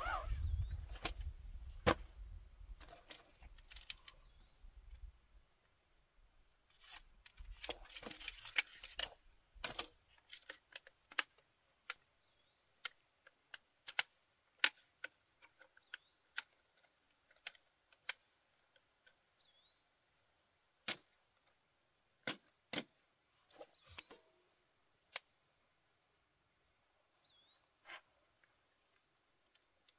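Light clicks and clacks of a compact folding camp table's shock-corded aluminium poles being snapped into the frame hub and legs, one sharp click at a time at irregular intervals. Fabric rustling and handling bumps of the table's carry bag and fabric top in the first ten seconds.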